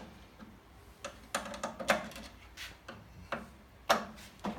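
Light clicks and knocks, about six or seven at irregular intervals, as the loosened guide of a Marlon coil-binding crimper is moved along its track.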